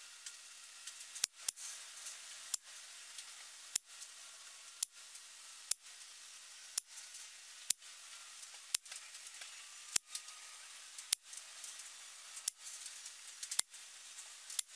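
Air rifle pellets striking a paper card target one after another, a sharp crack about once a second over a faint steady hiss.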